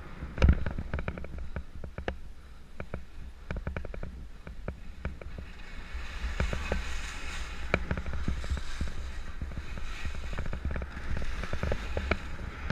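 Skis running fast over snow, with many sharp scraping clicks and cracks from the skis and a heavy thump about half a second in, over a steady low rumble of wind on the microphone.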